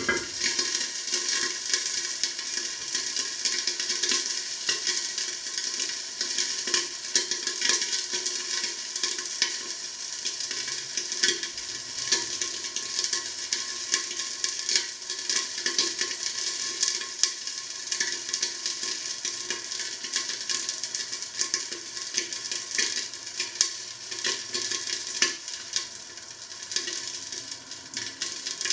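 Food frying in hot fat on the stove: a steady sizzle with many small crackles and pops, easing off a little near the end.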